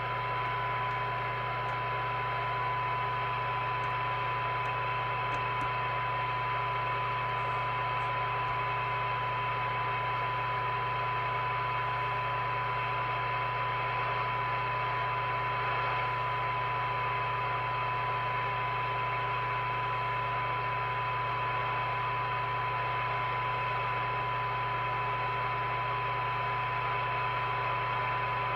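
Moonraker Minor II CB radio's speaker sounding a steady 1 kHz test tone buried in receiver hiss, with a low hum under it. A weak signal-generator test signal is being fed in near the receiver's sensitivity limit for a 20 dB SINAD measurement.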